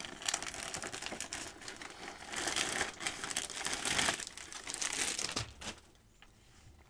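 Crinkly plastic wrapping being handled and pulled open: an irregular crackling rustle that goes on for about six seconds and stops shortly before the end.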